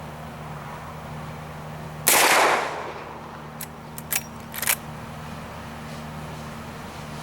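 A single shot from a Marlin 1894S lever-action rifle in .44 Magnum, about two seconds in, with a short ringing tail. About a second and a half later comes a quick run of sharp metallic clicks, the lever being worked to eject the case and chamber the next round.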